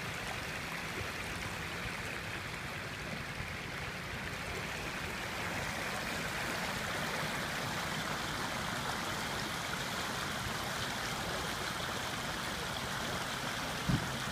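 Floodwater rushing steadily across a street, a continuous stream-like flow. A brief thump near the end.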